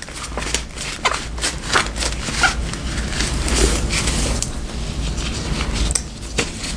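Damp washcloth being twisted and scrubbed inside the plastic lather chamber of a Conair hot lather dispenser, a run of irregular rubbing and scraping strokes over a steady low hum.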